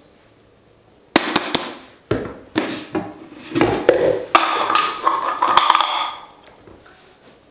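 Kitchenware clattering and knocking for about five seconds, with sharp knocks and some ringing, as dishes and utensils are handled.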